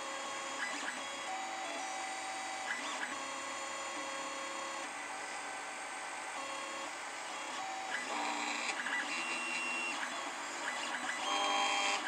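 Stepper motors of a small CNC plotter driving a pen across a copper-clad board, whining in steady tones that jump to a new pitch every second or so as each move changes speed and direction.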